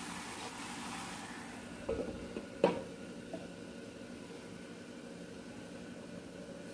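A spatula stirring chopped banana flower in a clay pot, then a glass lid set down on the pot with a sharp clink about two and a half seconds in, with a couple of small knocks just before. Under it runs the steady hum of an induction cooktop.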